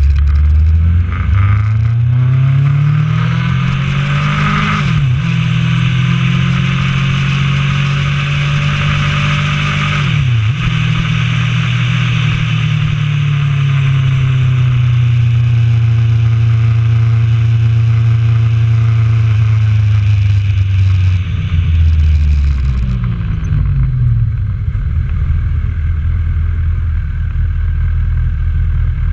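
Honda CB1000R's inline-four engine pulling away and accelerating through two quick upshifts, about five and ten seconds in, then holding a steady cruise. Near the end it slows, the engine note falls and it settles to idle, while the wind rush heard at speed dies away.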